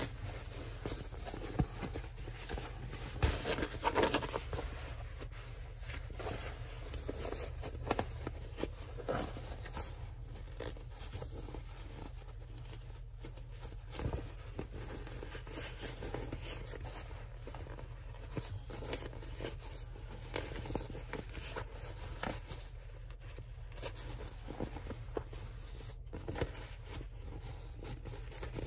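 Woven fabric rustling and brushing as hands turn a sewn tote bag right side out and smooth it, with scattered soft knocks, over a low steady hum.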